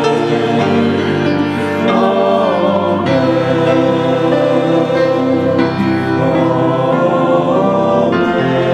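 Sung choral music: held notes in chords that move slowly from one to the next.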